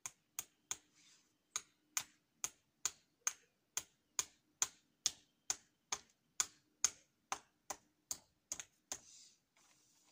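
Hammer driving nails into a wooden post: a steady run of sharp taps, a little over two a second, stopping about nine seconds in.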